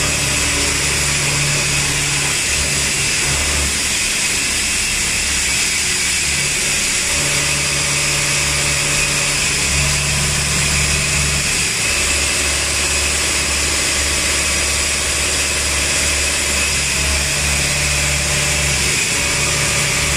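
CNC vertical machining center milling steel mug-die cores: a steady high spindle whine over a low hum that cuts in and out every second or so as the machine moves.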